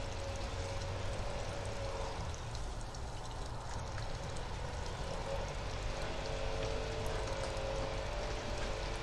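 Steady hiss with a faint engine hum from neighbours' lawn equipment running in the background.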